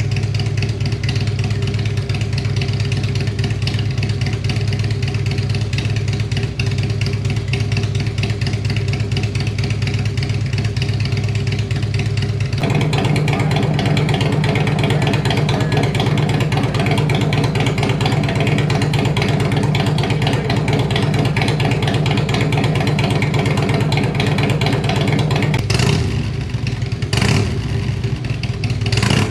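Harley-Davidson Twin Cam V-twin motorcycle engine with an aftermarket exhaust idling, its sound changing abruptly about twelve seconds in to a louder, rougher idle. Near the end the throttle is blipped three times in quick revs.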